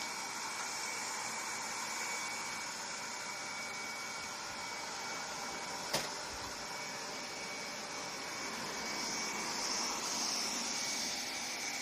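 Robot vacuum cleaner running with a steady whir and a faint high whine. One sharp knock about six seconds in.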